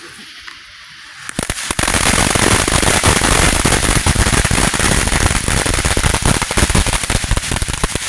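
Consumer fireworks going off: after a quiet second, a dense, continuous run of rapid sharp cracks and pops starts about a second in and keeps going loudly.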